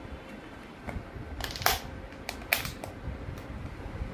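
Snap-on plastic lid of a takeaway food container clicking as it is pried open. About half a dozen sharp clicks, the two loudest near the middle.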